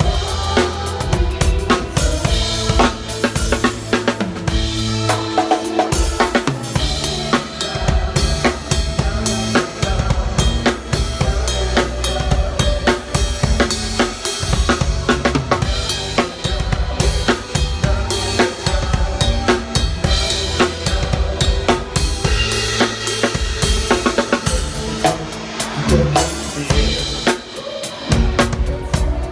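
Drum kit played along to a pop song's backing track: kick drum, snare and cymbals in a steady beat over the recorded music.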